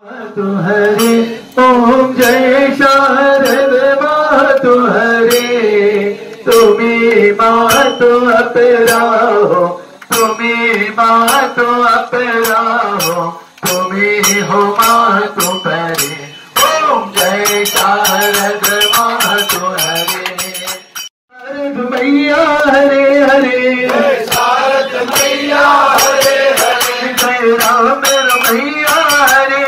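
Devotional singing: a voice chanting a hymn over sharp clinking, rattling percussion, pausing briefly several times, longest about 21 seconds in.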